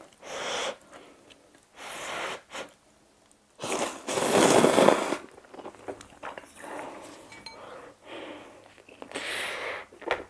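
Slurping of thin spaghetti noodles, several separate slurps with the longest and loudest about four seconds in, and quieter chewing between.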